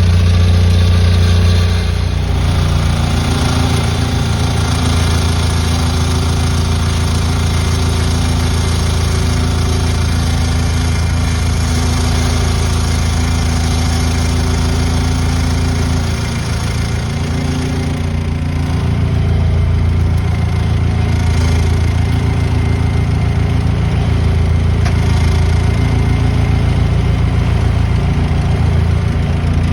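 Vehicle engine running steadily under light load. It eases off about two seconds in, dips briefly past the middle and picks up slightly again afterwards.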